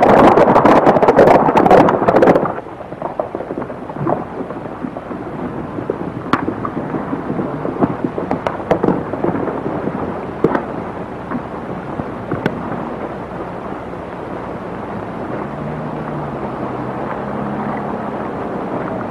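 A group of horses galloping, a dense clatter of hoofbeats that drops off sharply about two seconds in. Quieter scattered hoof clops follow over the crackle of an old film soundtrack.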